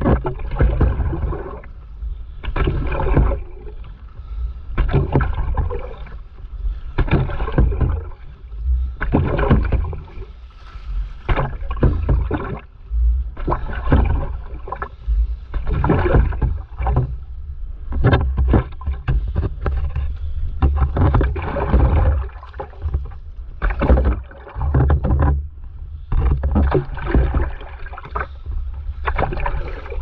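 Stand-up paddleboard paddle strokes: the blade dips and pulls through seawater in splashing strokes, one every second or two, over a constant low rumble on the microphone.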